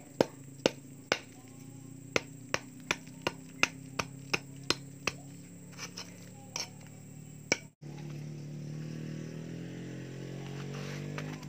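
A hammer striking a cast-concrete stove body, a dozen or so sharp knocks about two to three a second that thin out after about five seconds, breaking out the fuel and air openings. After a break near the end, a steady low hum.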